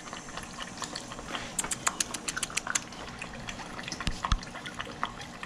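Puppies lapping water from a plastic tub: a quick run of wet lapping clicks, thickest in the middle, with a couple of dull knocks about four seconds in.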